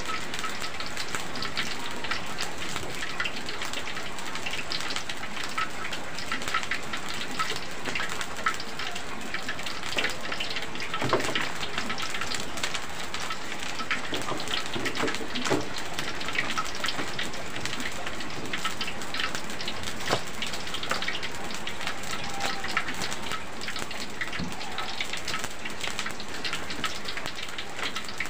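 Heavy rain falling steadily, a dense patter of drops. A few light knocks and rustles about halfway through as a paper-lined plate is set down on the stove.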